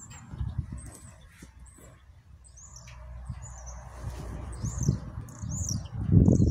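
Small birds chirping in short, high, up-and-down calls, over a low rumbling noise that grows much louder near the end.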